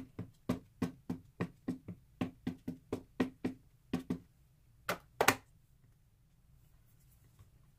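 A handmade stamp dabbed over and over on an ink pad, about three or four light knocks a second. About four seconds in the tapping stops, and two firmer knocks follow near five seconds in as the stamp is pressed onto the paper.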